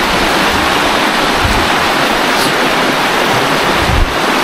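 River water rushing steadily down a natural rock slide, loud and close. A couple of brief low rumbles come through, about a second and a half in and again near the end.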